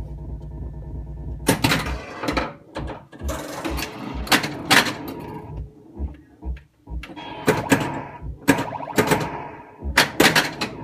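1982 Bally Space Invaders pinball machine in play. A steady electronic hum runs for about the first second and a half. Then come irregular sharp clacks of the ball striking the pop bumpers and the solenoids firing, mixed with the machine's electronic sound effects.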